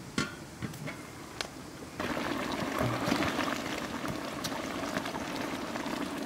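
A large pot of water boiling hard over a wood fire: a steady bubbling that starts, heard close up, about two seconds in. Before it, a few light metal clinks as the pot's metal lid is lifted off.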